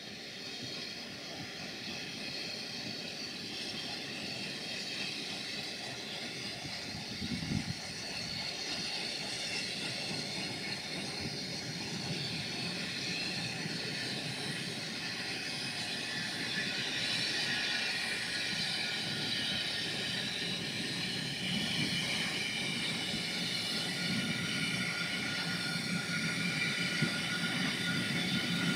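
Bagnall No. 2, a small industrial steam locomotive, approaching with a train of coaches; its running and steam grow steadily louder as it nears.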